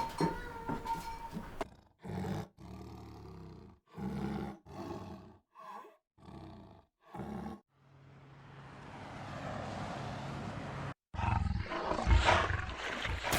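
A rapid series of animal roars and growls, cut one after another: about seven short roars, then a longer swelling roar, then louder rough growls near the end.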